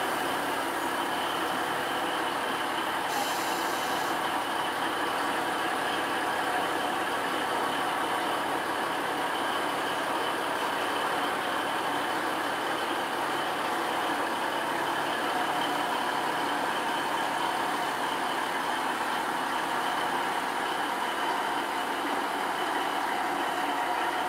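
An engine running steadily at idle, with a brief high hiss about three seconds in.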